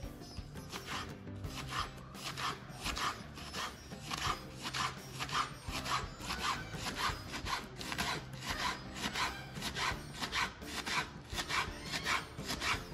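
Knife shredding a folded stack of cabbage leaves on a wooden cutting board: quick, even slicing strokes, about three a second, starting about a second in.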